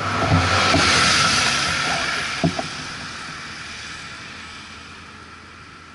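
A road vehicle passing close by, a broad rush of noise that peaks about a second in and then fades steadily as it goes off down the road. A short sharp knock sounds about two and a half seconds in.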